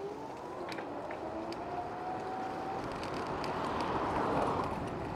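Electric scooter's motor whining and rising in pitch as it speeds up, over rushing wind on the microphone that swells about four seconds in.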